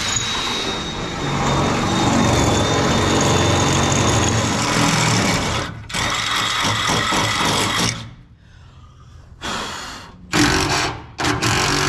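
Cordless drill running under load on a race seat's mounting: one long run of about six seconds, a shorter run after a brief stop, then several short bursts near the end.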